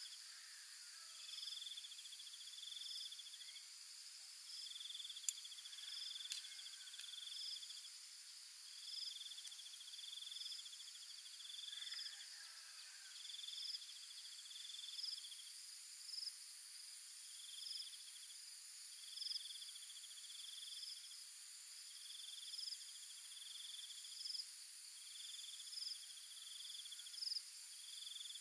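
Insects trilling: high, buzzy trills of about a second each come again and again, often in pairs, over a steady high-pitched insect hum. Two sharp light clicks sound about five and six seconds in.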